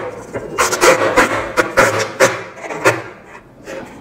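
Clear adhesive tape being pulled off its roll in a series of short pulls, each a brief noisy tearing sound, as it is stretched around a dress form's waist; the pulls grow quieter in the last second.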